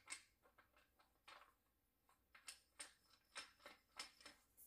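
Near silence with faint, scattered clicks and rustles of hands handling a fuel pump and inline filter assembly.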